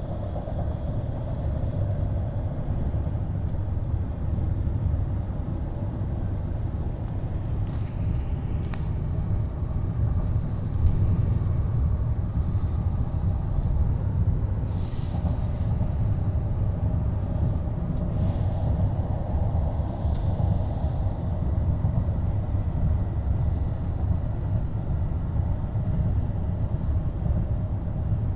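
Steady low rumble of a 2019 GMC Yukon XL Denali driving at speed, heard inside the cabin: road and tyre noise with the drivetrain underneath. A few faint clicks about eight seconds in.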